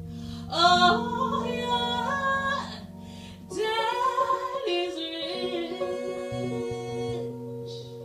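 Live jazz ballad: a female vocalist sings two slow phrases with vibrato over long held chords from the band's piano and bass.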